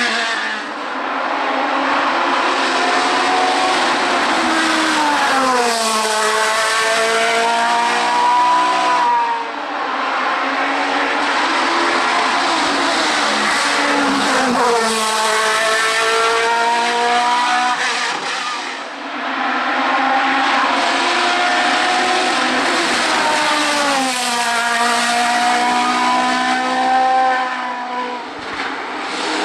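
Hill-climb race cars at full throttle, engines revving high, the pitch climbing through each gear and dropping at every change. Several cars follow one another, the sound changing abruptly about every nine seconds.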